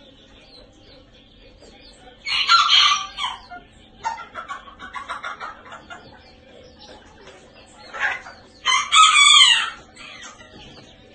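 Serama bantam cockerel crowing twice, each crow short and about six seconds apart, with quieter rapid clucking between them.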